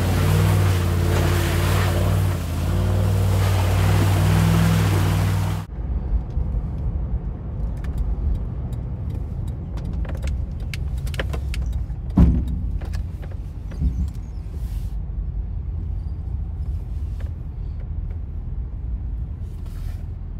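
Car engine running under load in snow, with steady low engine notes under a loud rushing hiss; after a sudden cut about six seconds in, a steady low engine and road rumble inside the moving car's cabin, with scattered clicks and knocks, the loudest a thump about twelve seconds in.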